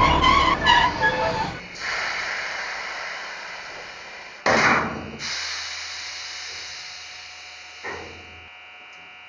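Effects from the digital sound decoder of a Märklin/TRIX H0 model of the DB class 151 electric locomotive. There are a few pitched notes in the first second and a half, then a fading hiss. About four and a half seconds in comes a sudden loud burst of hiss that fades to a low steady hum, and a short hiss follows near the end.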